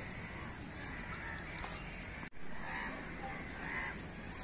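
Crows cawing over steady outdoor background hiss, with a sudden brief dropout about two seconds in.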